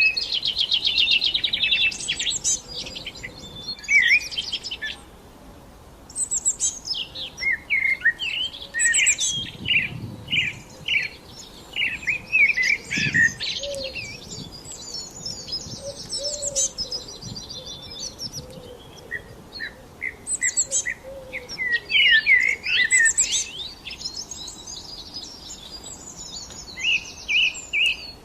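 Several songbirds chirping and singing, a chorus of short rapid chirps and trills, with a brief lull about five seconds in.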